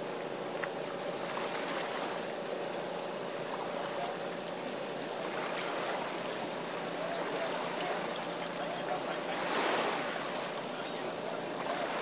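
Steady rushing noise with a faint steady hum beneath it; a louder rush swells briefly near the end.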